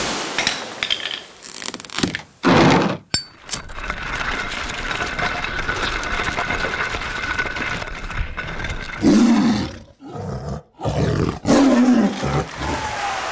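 A montage of separate film sound effects cut one after another. There are short loud bursts about two and a half seconds in, then a steady noisy mechanical-sounding stretch with a faint held tone, then two brief, loud, roar-like calls with bending pitch, at about nine and eleven and a half seconds.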